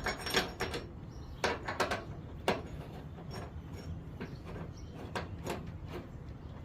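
Irregular sharp clicks and knocks of metal hardware and hand tools being handled while a tailgate shock bracket is bolted on, a few clustered in the first few seconds and fainter ones later.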